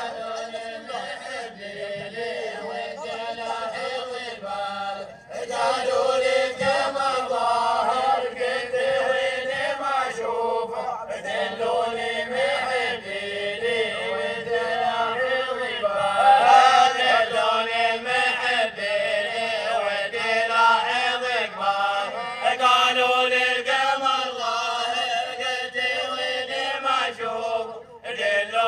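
A group of men chant an Omani folk song together, their voices rising and falling in unison. There is a brief break about five seconds in, and the chant is louder after it.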